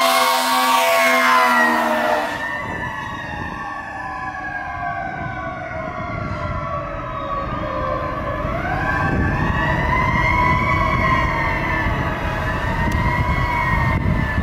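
Fire truck siren wailing as the ladder truck passes, with its air horn sounding for about the first two seconds. The siren's pitch then slides slowly down for several seconds, rises again and wavers, over the low rumble of the truck's engine pulling away.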